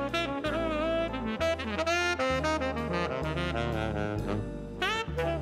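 Big-band jazz: a saxophone plays a busy solo line with rising scoops and bends over a bass line and the band's rhythm section.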